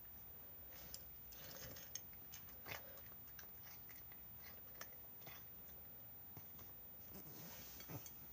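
Cat eating its food, with faint, irregular chewing and crunching.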